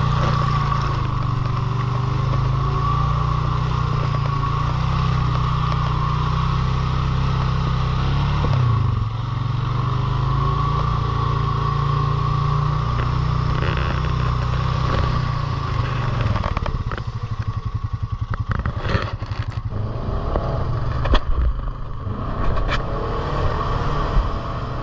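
Off-road vehicle engine running at a steady speed, with a steady whine above it. About sixteen seconds in it drops to a lower, pulsing run, and scattered knocks and clatter come through.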